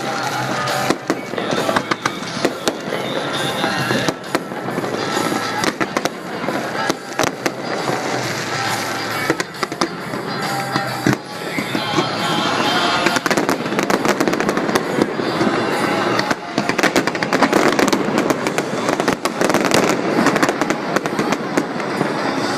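Fireworks bursting and popping in rapid, crowded succession, the crackle thickest from about halfway through, with music playing underneath.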